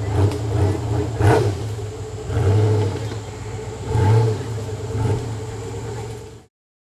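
Off-road buggy engine running with a few swells of throttle. The sound cuts off suddenly near the end.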